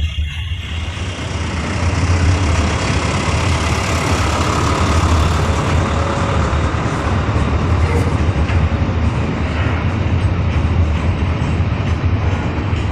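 EMD G26MC-2U diesel-electric locomotive engine running loud, building up about a second in and then holding steady while it drives the air compressor to charge the brake air.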